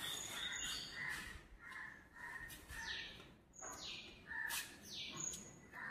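Birds chirping and calling: many short repeated notes, with several quick downward-sweeping whistles.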